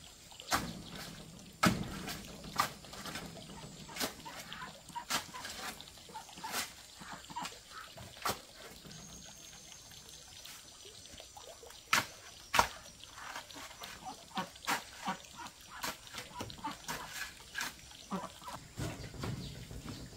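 Irregular sharp knocks and taps, one or two a second. The loudest are a pair of strikes about twelve seconds in.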